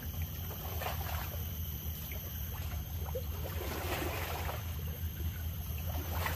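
Seaside outdoor ambience: a steady low rumble with soft swells of rushing noise about a second in, around four seconds, and again near the end.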